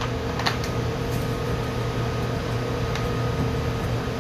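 Steady hum of commercial kitchen ventilation, with a couple of light clicks as a cornmeal canister is handled.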